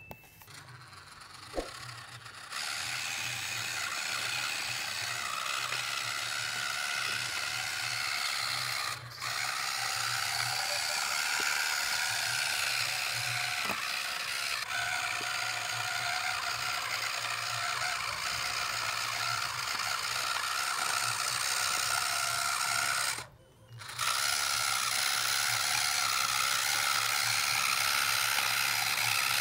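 Small electric gear motor of a homemade model tractor running steadily under load, its gearbox whirring and clattering as it drags a disc harrow through sand. It is quieter for the first couple of seconds and cuts out briefly about three-quarters of the way through.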